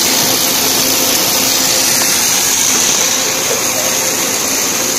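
Corn ring snack twin-screw extruder line running: a steady, loud machine whir and hiss with a faint hum underneath.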